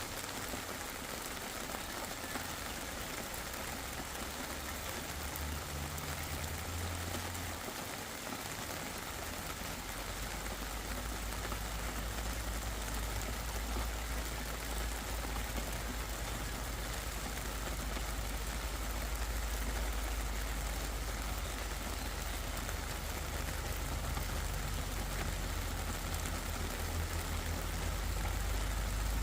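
Steady rain falling, an even hiss with no breaks, with a low rumble underneath that sets in about a third of the way through.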